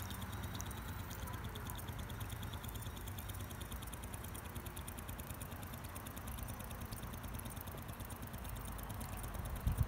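Mini Renown 101 toy live steam engine running steadily, a rapid even ticking of its exhaust and motion as it drives a small Pericaud water-lift pump by a string belt, with a low rumble underneath.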